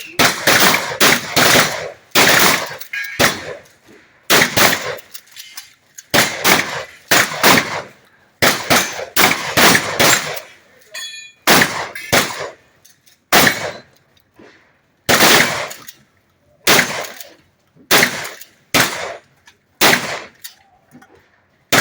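Shotgun shots fired at steel plate targets in a long irregular string, often two or three within a second, with pauses of a second or two between groups; some blasts are followed by a short metallic ring from the struck steel.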